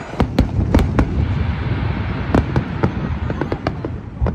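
Aerial firework shells bursting: a run of sharp bangs, several in the first second and more about two and a half seconds in, over a continuous low rumble.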